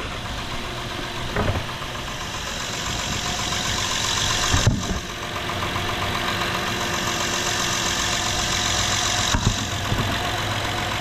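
Honda Pilot's 3.5-litre V6 idling steadily with its new side engine mount fitted, running as it should.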